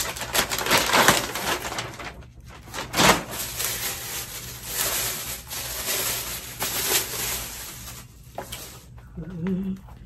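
Packaging rustling and crinkling as a leather document holder is unwrapped and pulled out by hand, with irregular clicks and knocks from the handling.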